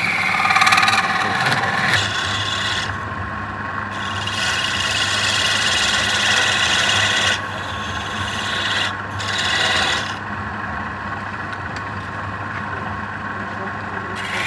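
Wood lathe running with a steady motor hum while a turning tool rubs and scrapes against the spinning wood, in several passes a few seconds long.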